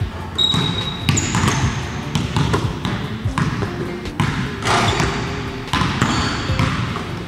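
Basketballs bouncing repeatedly on a hardwood gym floor, each bounce echoing in the large hall, with a few short high squeaks.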